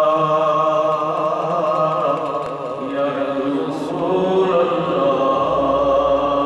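A man's solo devotional chanting into a microphone, unaccompanied, in long held notes that waver in pitch, with brief breaths between phrases.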